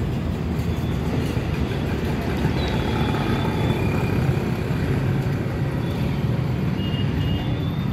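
Steady low mechanical rumble of a running motor.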